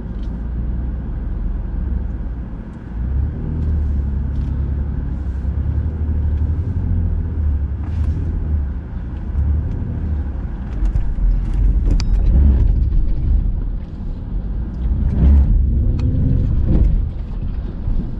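Off-road vehicle engines running on a rocky dirt trail: a steady low rumble with scattered knocks and rattles, and an engine note that rises and falls briefly near the end.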